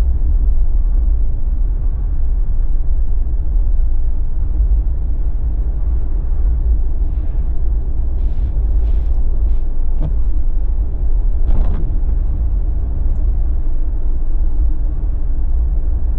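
Steady low rumble of road noise inside a Jeep driving on a winter highway, engine and BFGoodrich KO3 all-terrain tyres running, with a few light knocks near the middle.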